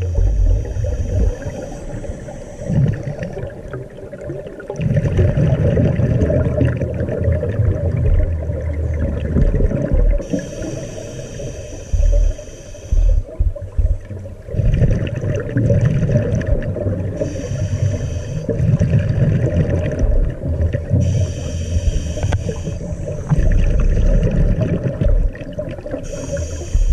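Underwater sound picked up by a submerged camera: a muffled low rumble and water noise, with a higher whine that comes and goes in spells of one to three seconds.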